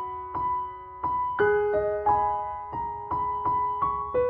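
Background piano music: single notes struck at an even, unhurried pace, each ringing out and fading.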